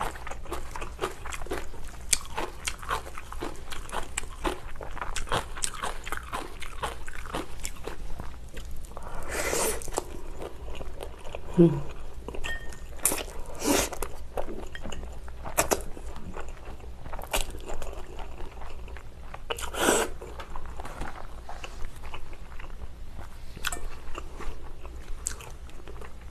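Close-miked eating: steady chewing with small wet clicks, and several louder slurps as spicy noodles are sucked in.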